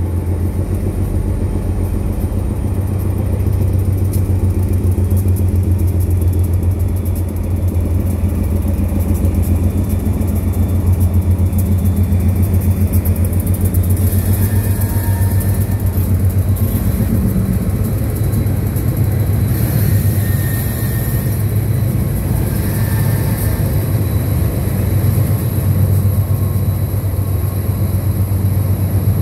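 GE and EMD diesel-electric freight locomotives working under throttle as they pass: a loud, steady low diesel rumble with a pulsing beat, with rail noise over the top.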